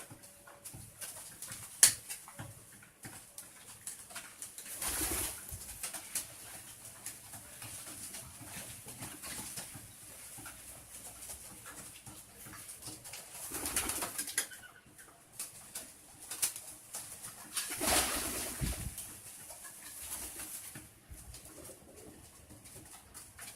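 Domestic pigeons cooing while they are fed, among many small clicks. There is a sharp click about two seconds in, and three louder rustling swells spread through the rest.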